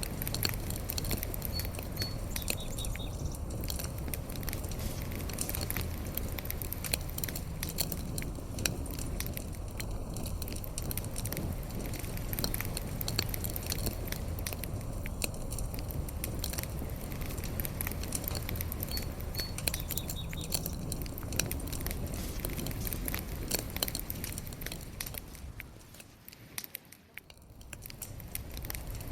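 Fire burning, with a steady low rumble and frequent sharp crackles and pops. About twenty-five seconds in the sound fades down briefly, then comes back up.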